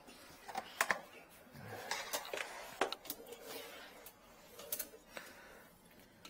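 A drain inspection camera's push cable being unreeled and fed into a sink drain pipe, with scattered light clicks and rattles of handling.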